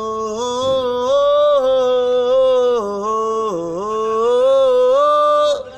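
A man singing unaccompanied, holding long drawn-out notes that slide up and down in pitch, breaking off about five and a half seconds in.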